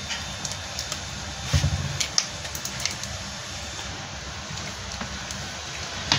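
Handling noise of a mains plug at a wall socket: a few short plastic clicks and knocks as the plug is worked out of and back into the socket, over a steady low hum.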